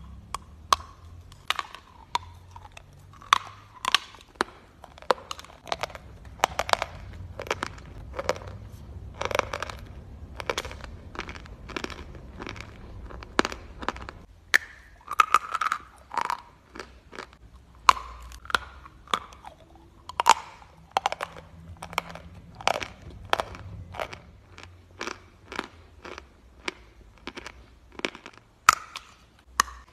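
A person biting off and chewing mouthfuls of a large lump of white chalk: many sharp crunches at an irregular pace.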